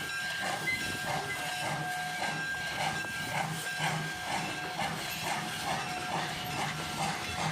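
Jeddo Coal No. 85, a 1928 Vulcan Iron Works 0-4-0 tank engine, chuffing slowly at about two exhaust beats a second under a steady hiss of steam, as it works its train at low speed.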